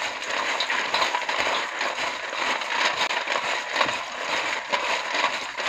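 Crisp deep-fried macaroni being mixed by hand in a stainless steel bowl: a continuous dry rattle and crunch of the pieces clattering against each other and the metal.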